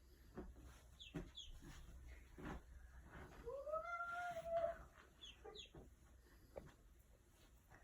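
Duckling peeping: short high peeps falling in pitch about a second in and again after five seconds. In the middle comes one longer, lower call that rises and falls. A few soft taps are heard.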